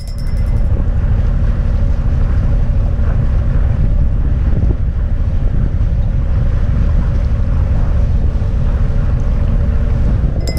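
Steady wind buffeting on the microphone over the low, steady drone of a sailing yacht's engine as it motors along.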